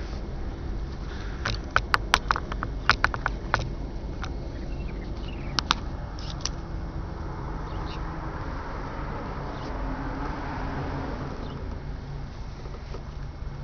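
Steady low drone of boat engines on the river, with a quick run of sharp clicks and knocks about two to four seconds in and a couple more about six seconds in.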